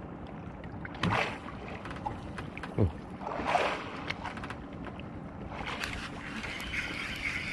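Knocks, clicks and a short creak from handling gear aboard a small open fishing boat on the sea, over the wash of water around the hull.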